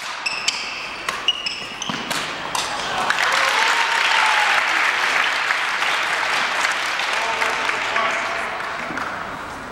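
A badminton rally ends with a few sharp racket strikes on the shuttlecock and short squeaks of shoes on the hardwood court, then the crowd breaks into applause and cheering about three seconds in, swelling and then slowly fading.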